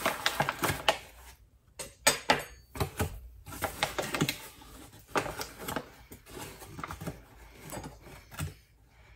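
Flour scooped out of a paper flour bag with a measuring cup: paper crinkling and scraping with a run of irregular clicks and taps.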